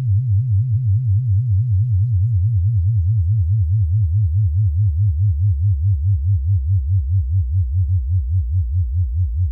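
Deep, steady hum of an animated spaceship's engine sound effect, pulsing several times a second.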